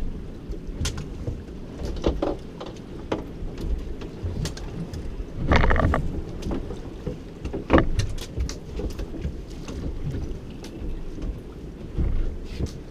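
Wind buffeting the microphone and water lapping against the hull of a small boat at sea, with scattered light knocks. It grows louder briefly a little before halfway through and again about two seconds later.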